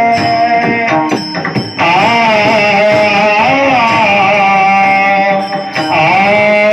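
Devotional bhajan music: a melodic line sliding between long held, wavering notes, with a short break about a second in.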